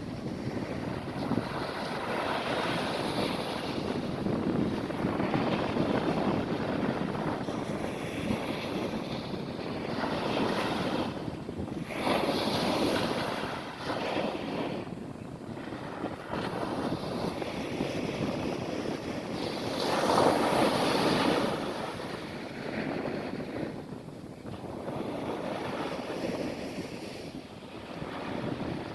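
Atlantic surf breaking and washing up a sandy beach: a continuous rushing that swells and ebbs with each wave, loudest about a third of the way through and again about two thirds through.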